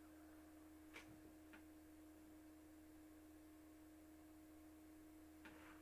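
Near silence: room tone with a faint steady hum, and two faint ticks about a second in.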